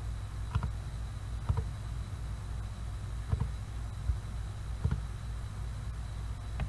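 Four faint computer mouse clicks, spread a second or two apart, over a steady low hum and a thin high-pitched whine.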